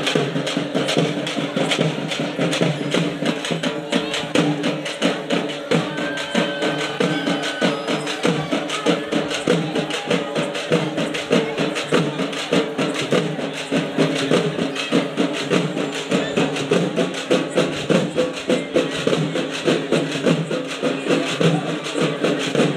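Quick, steady drumming that goes on without a break, over the din of a crowd.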